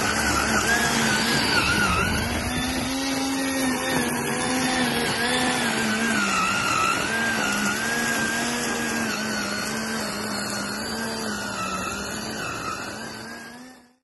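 Homemade remote-control weed trimmer running: the motor spinning its cutter whines steadily, and the pitch dips and recovers as it cuts through tall grass. The sound fades out at the end.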